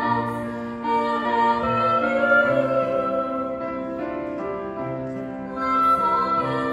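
Live music: a female voice singing into a microphone, with an oboe and a grand piano playing along.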